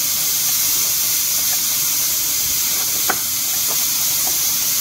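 Steady high-pitched hiss with one short click about three seconds in.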